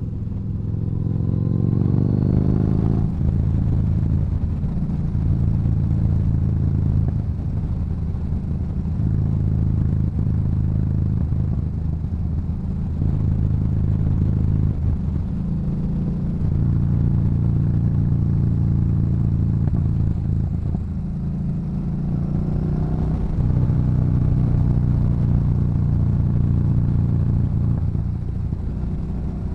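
Yamaha Bolt's air-cooled V-twin breathing through an aftermarket Cobra exhaust while riding. The revs climb for the first few seconds and drop suddenly at a gear change about three seconds in. The engine then runs at a steady pace, the throttle opening and easing off, with the revs rising again a little past the middle.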